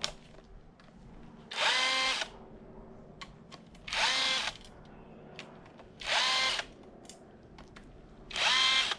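A handheld power tool spinning out bolts during an engine teardown, in four short runs about two seconds apart. The motor's pitch rises at the start of each run.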